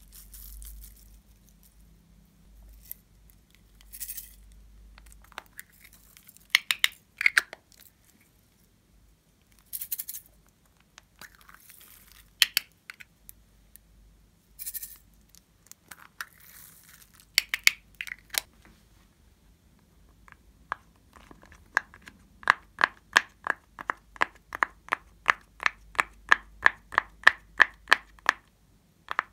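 Scattered clicks and scrapes from handling a small corked glass vial and a plastic eyeshadow compact, then a steady run of more than twenty pops, about three a second, as a finger presses the silicone bubbles of an owl-shaped pop-it fidget toy one after another.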